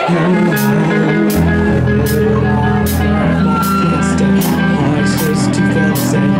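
Live rock band playing: electric guitar with drums, a low bass part coming in about a second and a half in.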